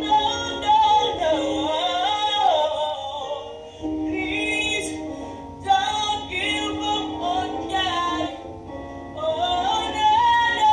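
A woman singing a worship song with long, gliding notes over an instrumental backing of held chords, with short pauses between phrases.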